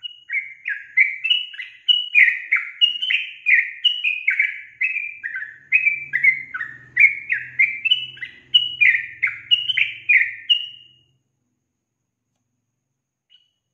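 Yellow-vented bulbul calling: a quick run of short falling notes, about two or three a second, that stops about eleven seconds in, followed by two faint short notes near the end.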